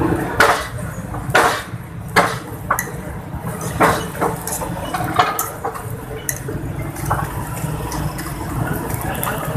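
A metal spatula and tongs scraping and clinking against a large flat iron griddle (tawa) as parathas are turned, in several sharp strokes during the first half, over a steady hiss of frying and a low rumble.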